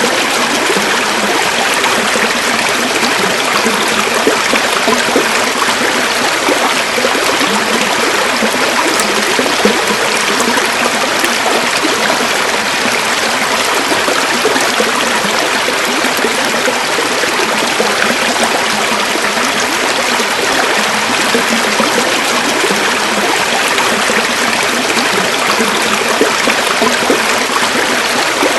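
River water flowing over stones, a steady, dense rush with fine trickling and burbling.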